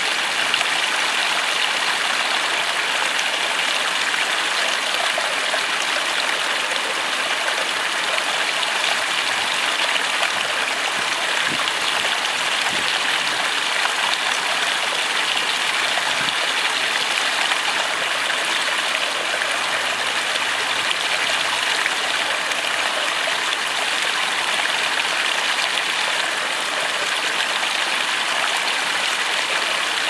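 River water pouring over rock and sticks at a small beaver-dam waterfall, a steady rushing and splashing that stays even throughout.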